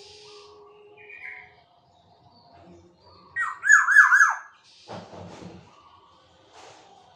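Caged black-naped oriole (kepodang) calling: a loud run of about four quick down-slurred notes about three and a half seconds in, followed by a shorter, rougher call.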